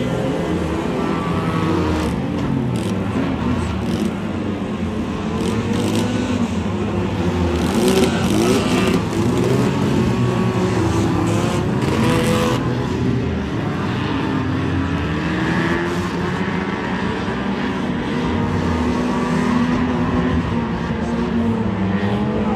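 Several banger racing cars' engines revving hard together, pitch rising and falling as they spin their wheels and shove against each other in a pile-up, with a few sharp knocks of cars hitting each other.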